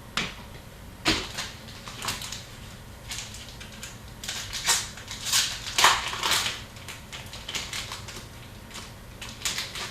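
Hockey card packs and cards being handled: irregular crinkling and rustling of pack wrappers and cards, densest about halfway through.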